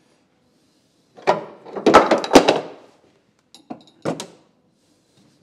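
Hard knocks and clatter as a small hydraulic jack and its wooden block are taken out from between a roll cage and a car body. A burst of knocks starts about a second in and is loudest around two seconds, with a few lighter knocks near four seconds.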